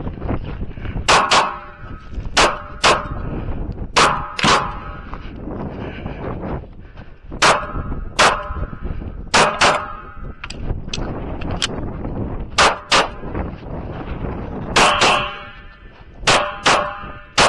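FN FNS-9 9mm pistol firing about twenty rapid shots, mostly in quick pairs, several with a ringing tail. Strong wind rumbles on the microphone between shots.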